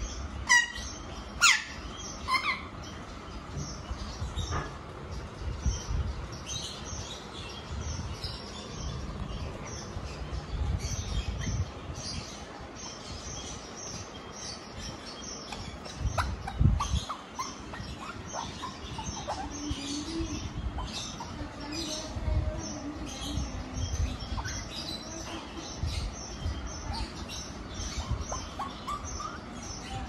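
Young Alexandrine parakeets chirping and calling: a few sharp, loud calls in the first few seconds, then softer chirps and chatter. A thump about halfway through comes as one bird is handled.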